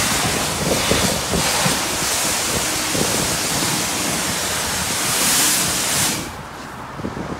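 Steady hiss of a self-service car wash's high-pressure wand spraying a jet of water, cutting off about six seconds in as the trigger is released.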